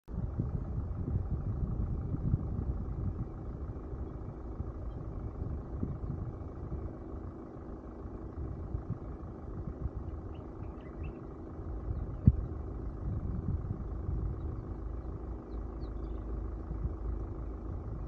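Low rumble of a vehicle's running engine heard from a roof-mounted camera, unsteady in level. There is one sharp knock about twelve seconds in, and a few faint high chirps a little before it.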